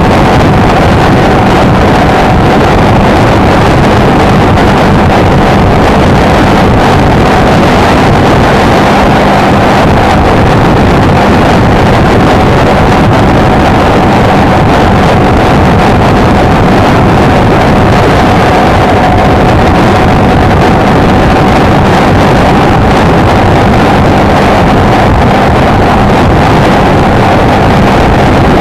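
Honda XLR125R's single-cylinder four-stroke engine running at a steady cruising speed, with a steady drone and no changes in pitch, mixed with heavy wind noise on the microphone.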